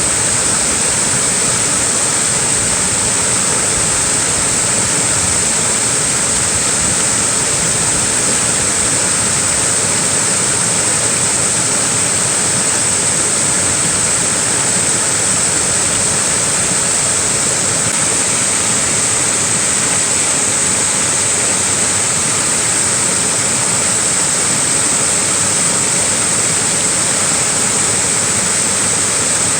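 Small waterfall: a steady, unbroken rush of falling water with a strong high hiss.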